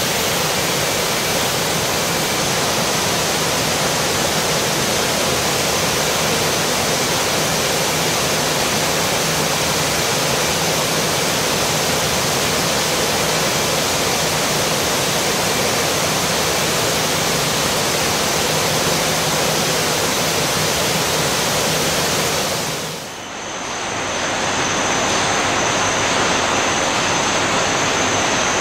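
Steady rushing air noise of a car-body paint spray booth, from the booth ventilation and the robot spray guns. About 23 s in it dips briefly and gives way to a duller steady factory-hall hiss with a thin high whine.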